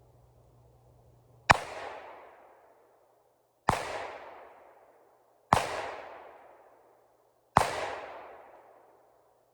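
Four single gunshots, about two seconds apart, each followed by a long echo that fades over about a second and a half.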